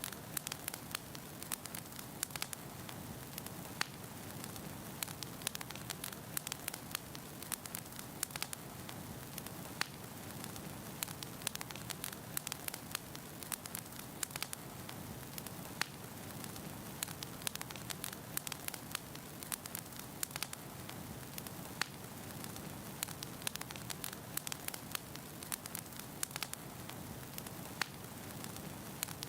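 Wood fire burning in a fireplace, logs crackling and popping with irregular sharp snaps over a steady hiss.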